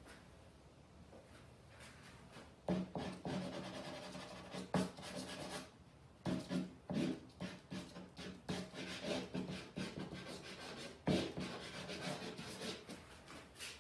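Charcoal scratching and rubbing across a canvas in quick, rough strokes, coming in spells of a few seconds with short breaks, beginning about three seconds in.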